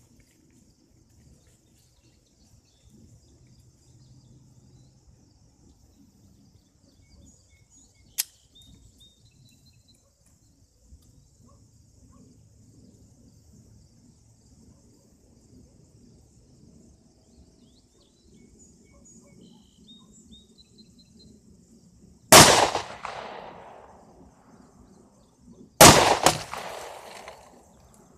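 Two pistol shots from a Smith & Wesson M&P Shield, about three and a half seconds apart, each ringing out and echoing for a second or so. A single sharp click comes a good while before them.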